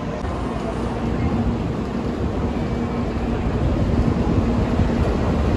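Steady hum and rumble of a Tokaido Shinkansen train standing at the platform, with one constant low tone over the noise, growing slightly louder toward the end.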